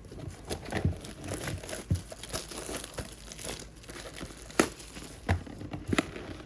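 A trading-card retail box being opened by hand: crinkling and tearing of its packaging, with scattered sharp clicks and taps as it is handled.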